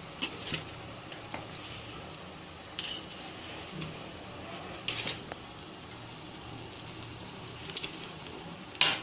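Onion-tomato masala sizzling steadily in a stainless steel pot as yogurt-marinated chicken is spooned in, with a few sharp metal clinks and knocks of utensils against the pot, the loudest near the end.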